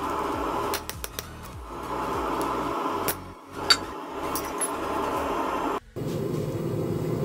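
Hammer striking a hot-cut chisel to score a line down a steel bottle-opener blank on an anvil: several light taps, then one ringing metallic clink about three and a half seconds in. A steady background drone runs under it, dropping lower after a brief gap near the end.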